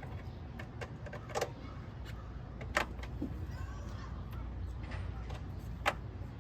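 Hand tools clinking and knocking on metal while a car battery's fittings are worked on with a socket wrench: scattered light clicks, three sharper clinks spread through, over a steady low rumble.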